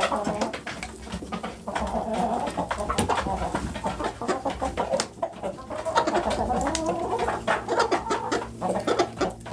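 A flock of chickens clucking and murmuring in their coop, many short rising and falling calls overlapping, with scattered sharp clicks.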